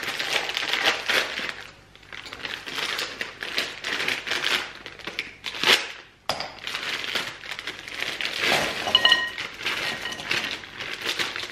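Plastic freezer bags of frozen vegetables crinkling as they are handled and cut open, with frozen Brussels sprouts and asparagus clinking and clattering into a glass bowl. The clattering is heaviest near the end, as the asparagus goes in.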